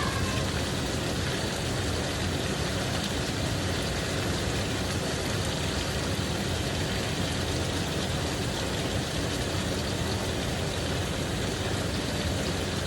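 Chicken frying in hot grease on the stove: a steady sizzle.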